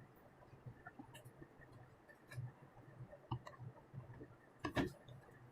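Faint clicks and taps of plastic handling as a smartphone is fitted into the phone clamp of a DJI Mavic Mini remote controller, with a louder knock near the end.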